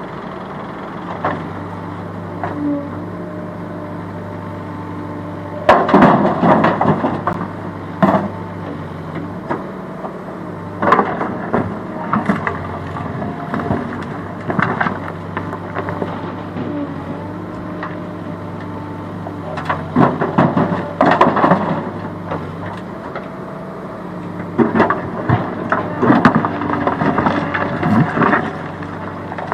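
A CASE backhoe loader's diesel engine running steadily while its bucket digs into rocky gravel, with repeated bursts of stones clattering and scraping every few seconds, the loudest about six seconds in.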